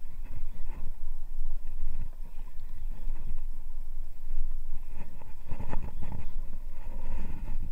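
Steady low rumble of a small fishing boat at sea, with wind buffeting the microphone.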